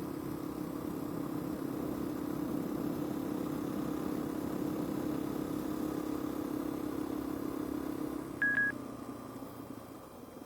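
Steady, even engine hum that fades about eight seconds in. Just then comes a short, high electronic beep.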